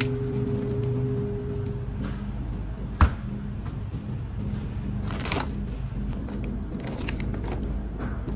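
Plastic-wrapped frozen pizzas rustling and crinkling as they are handled and loaded into a shopping cart, with one sharp knock about three seconds in, over a steady low hum.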